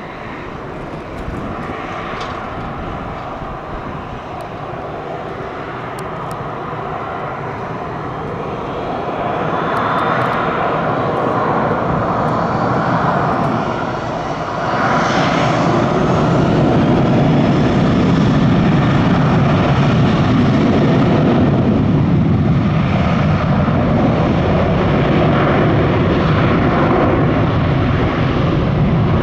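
Boeing 737-800's twin CFM56-7B turbofan engines running, the sound growing about a third of the way in, then rising sharply about halfway through to a steady, loud roar as the engines spool up for the takeoff roll.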